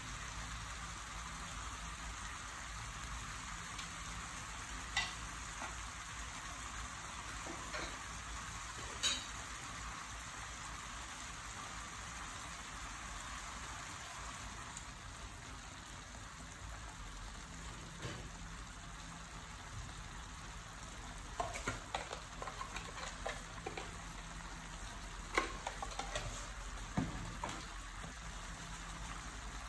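Beef and vegetables sizzling steadily in a wok, with a few sharp clicks and pops, more of them in a cluster near the end.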